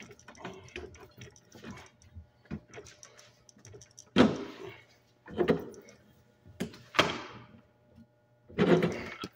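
Metal clicks and clanks from a wrench working a brass fitting on copper pipe clamped in a bench pipe vise: light tapping and clicking at first, then several sharp, louder clanks from about four seconds in, the loudest near four and seven seconds.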